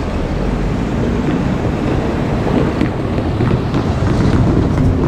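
KiHa 40-series diesel railcars running past, a steady low noise with a few faint wheel clicks in the second half, mixed with wind buffeting the microphone.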